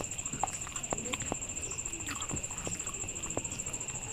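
Close-up eating sounds: fingers squishing and mixing rice with curry on a banana leaf, with wet mouth clicks of chewing, in many short irregular clicks. Under them runs a steady, high-pitched insect trill.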